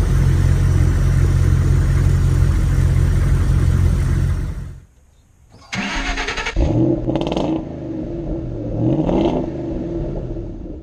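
A loud, steady engine sound that stops abruptly about five seconds in. After a brief gap, a motor starts with a rising pitch and keeps running, its pitch shifting up and down.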